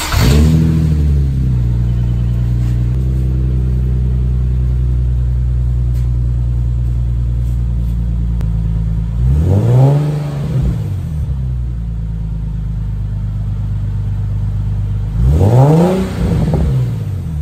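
Nissan 370Z's 3.7-litre V6 heard through a newly fitted Fast Intentions TDX cat-back exhaust on its first start: it catches and flares at the start, settles to a steady idle, then is revved twice, at about ten seconds and near the end, each rev rising and dropping back to idle.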